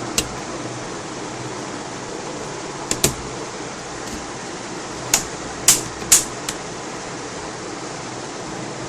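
Plastic clips of a Lenovo G570 laptop's LCD front bezel clicking loose as the bezel is pried away from the screen panel: about seven short, sharp clicks, two close together about three seconds in and a cluster between five and seven seconds, over a steady hiss.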